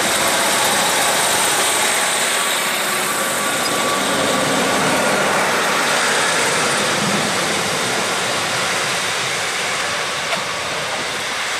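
Class 156 Sprinter diesel multiple unit pulling out past the listener: a steady mix of underfloor diesel engine and wheel-on-rail noise that eases off near the end as the train draws away.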